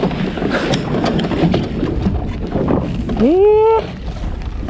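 Wind buffeting the microphone over the low rumble of a small boat at sea. About three seconds in, a man lets out one drawn-out, rising "eeh~" that lasts about half a second.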